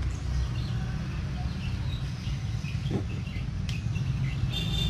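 Steady low rumble with a few faint, short high chirps over it, a single click a little before the end, and a steady high tone coming in near the end.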